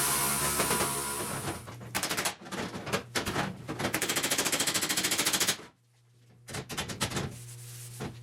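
A power tool winding down, then metal hammering on the bare steel of a car's trunk panel, knocking down a high, dented area. Scattered blows come first, then a fast even run of about ten strikes a second.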